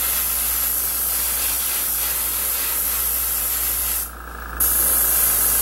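Double-action airbrush hissing steadily as it sprays paint onto a model part. The hiss stops for about half a second around four seconds in, then starts again.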